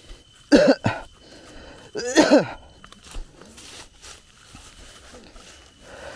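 Two short, loud vocal bursts from a person, one about half a second in and one about two seconds in, heard as coughs or throat-clearing, followed by fainter voice sounds.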